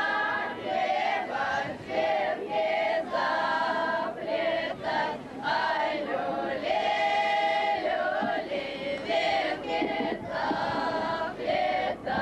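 A group of women's and children's voices singing a Russian folk song together, in short sung lines with brief breaks between them.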